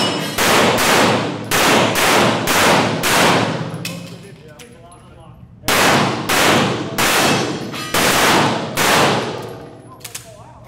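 Pistol fired in quick strings of about two shots a second, each shot ringing off the concrete walls of an indoor range: about six shots, a pause of about two seconds, then six more. Faint light clinks near the end.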